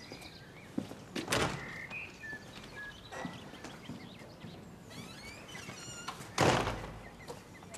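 A door thudding as it is opened and shut, with a few knocks and a heavy thump near the end, the loudest sound. Small birds chirp faintly in between.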